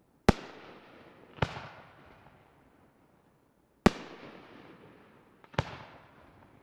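Aerial firework shells bursting: four sharp bangs, each trailing off in a rolling echo. The first and third bangs are the loudest.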